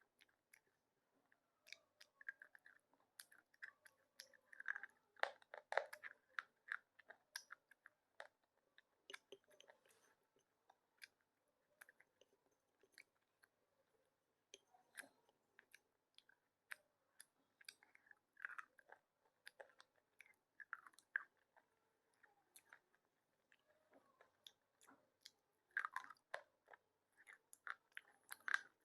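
Someone chewing slate pencil pieces with soft, crisp crunches: irregular clusters of small crackling bites, louder about five seconds in and again near the end.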